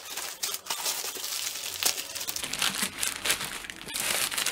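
Plastic postal mailer bag crinkling and rustling as it is pulled open by hand, with many small crackles and a louder stretch of rustling near the end.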